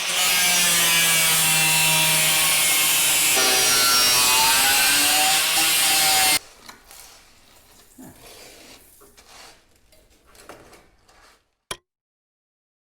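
A power tool runs loudly, its motor pitch sagging and rising as it cuts, and stops abruptly about six seconds in. Faint scattered clatter follows, with one sharp click near the end.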